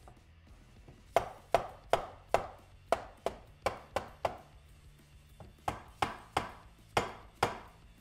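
Rubber mallet tapping the aluminium crankcase halves of a 1993 Honda CR250 two-stroke engine, driving the case half down evenly onto the crank. A run of about nine sharp taps starts a second in, then after a pause of over a second come five more.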